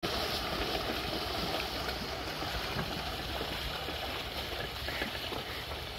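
Shallow river water splashing and flowing as water buffalo and a buffalo-drawn wooden cart wade through it: a steady wash of water with a few small splashes.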